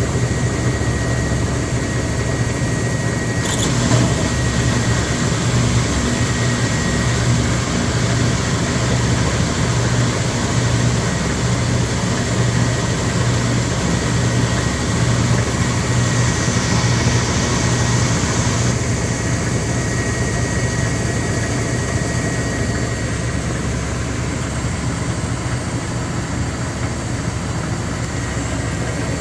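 Speed Queen TR-series top-load washer running with a continuous knocking rattle and a pulsing hum, and one sharper knock about three and a half seconds in. The noise comes from play in the drive pulley on its shaft because the pulley nut has loosened.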